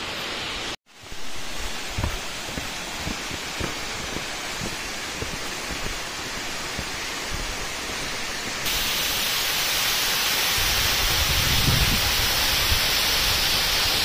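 Birthi Falls, a tall waterfall pouring down a rock face, rushing steadily. The sound cuts out for an instant about a second in, then grows louder and brighter about two-thirds of the way through, with some low rumbling after that.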